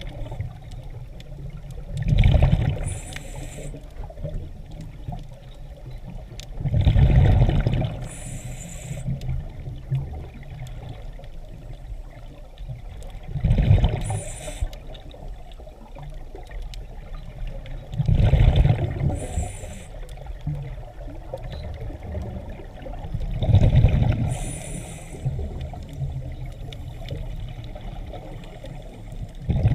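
Scuba diver breathing through a regulator underwater: a bubbling rush of exhaled air about every five seconds, each followed by a short hiss, six breaths in all.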